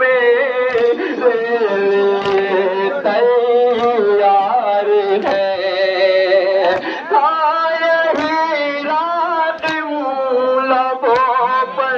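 Male voice singing a nauha, a Muharram lament for Husain, in long, wavering held notes. Sharp slaps recur about every second and a half: the mourners' rhythmic chest-beating (matam).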